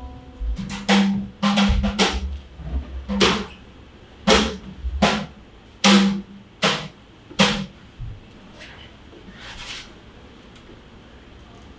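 Drum hits, about ten sharp, irregularly spaced strikes over a low rumble, stopping about two thirds of the way through and leaving only a faint background.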